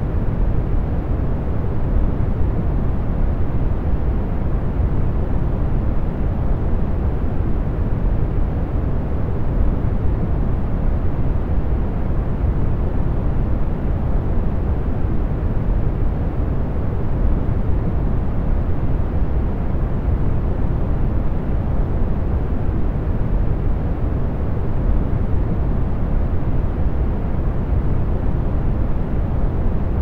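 Industrial fans blowing: a steady, even rush of air, heavy in the lows with little high hiss.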